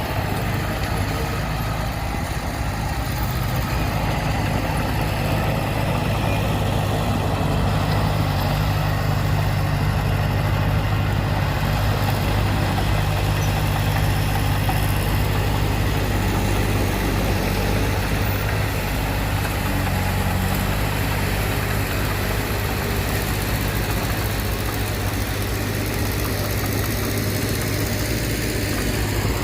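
Heavy diesel earthmoving engine running steadily at an even speed, with a constant low hum.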